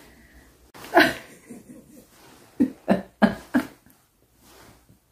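A woman laughing to herself, not speaking: a breathy burst about a second in, then four short 'ha' pulses close together around the middle.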